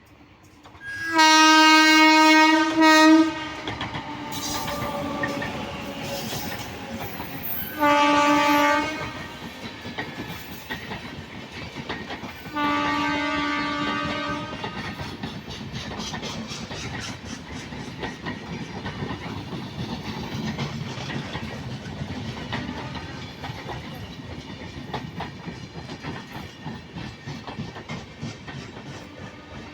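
Indian Railways train horn sounding three blasts: a long one, a short one several seconds later, then a slightly longer one. Between and after them the train runs on with a steady rumble of wheels and clickety-clack over the rail joints.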